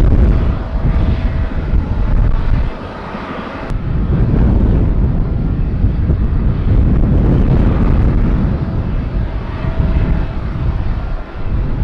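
Jet airliner engines, a loud steady rumble with a faint whine, as the plane flies low on its landing approach. The sound dips for about a second, around three seconds in.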